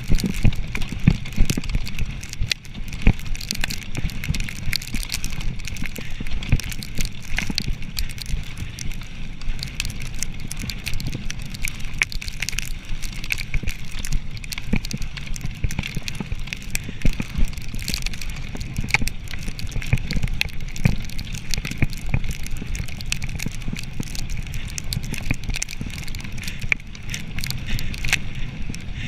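Mountain bike ridden fast over a bumpy forest dirt trail: a constant dense rattle and crackle from the tyres and frame, over a low rumble.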